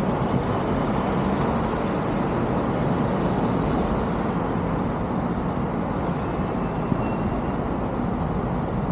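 City street traffic: cars driving through an intersection, a steady rumble of engines and tyres on the road.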